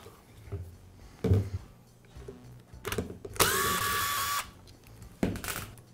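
Cordless driver backing a screw out of the front gear case of a Milwaukee impact wrench; its motor runs steadily for about a second, midway through. A few short knocks of the tools being handled come before and after.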